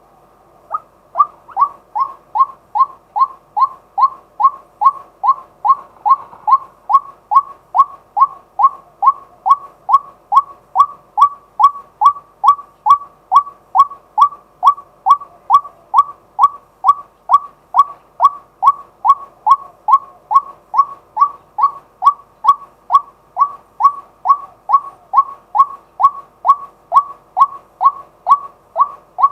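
Male white-breasted waterhen calling a long, monotonous series of short, sharp 'kwak' notes, about two and a half a second, beginning about a second in.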